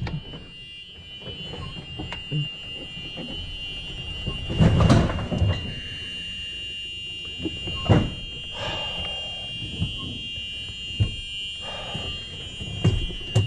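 A steady, high-pitched electronic warning buzzer sounding without a break, with several knocks and thumps over it.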